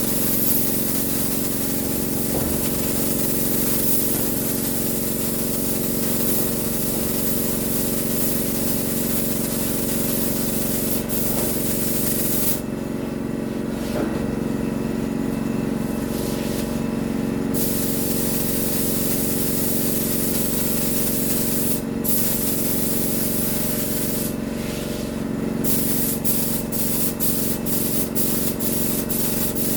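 Air-powered paint spray gun hissing as paint is sprayed, the trigger let off for a few seconds midway and then worked in quick short passes near the end. A steady hum runs underneath.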